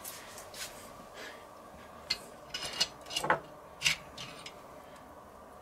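Metal rotisserie spit and its fork prongs being handled and pushed into a raw goose: a run of short metallic clicks and scrapes, bunched about two to four seconds in.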